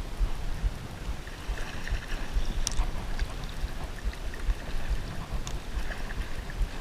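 Moving water washing and lapping along the shore, with wind rumbling on the microphone and a few short sharp ticks.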